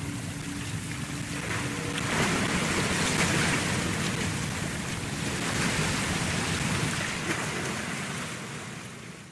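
Even rushing noise of moving water, swelling about two seconds in and fading out near the end, under low held musical tones that die away in the first two seconds.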